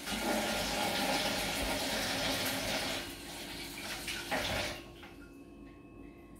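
Kitchen tap running into the sink, shut off about five seconds in.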